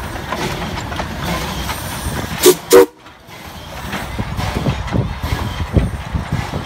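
Steam locomotive whistle giving two short, loud toots about two and a half seconds in, the usual signal that the train is about to move. Afterwards comes the low running rumble of the locomotive and cars pulling away.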